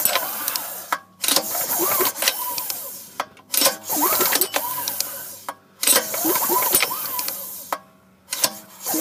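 A 212cc small engine, switched off, cranked over by hand on its recoil starter: about five pulls, each a whirring rush that rises and falls in pitch, with short pauses between them. The engine is being turned over without starting to work fresh oil through it.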